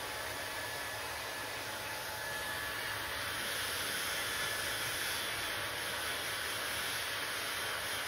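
Handheld hair dryer running, a steady rush of blown air, a little louder and brighter from about three seconds in.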